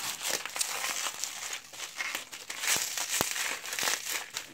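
Plastic wrapping crinkling and crackling in irregular bursts as it is handled and pulled off a beer can.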